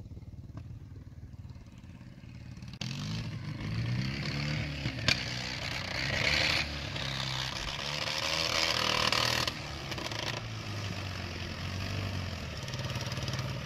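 Engine of a homemade three-wheeled karakat on balloon tyres, driving across a grass field, its pitch rising and falling as it revs. Faint at first, louder from about three seconds in, with a sharp click about five seconds in and a stretch of hiss in the middle.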